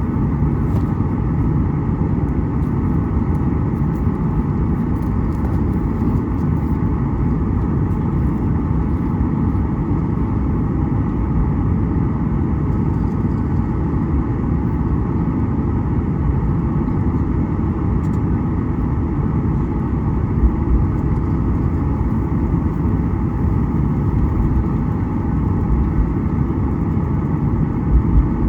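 Steady, even rumble of a Boeing 737 heard from inside the passenger cabin: engine and airflow noise, with no change in pitch or level.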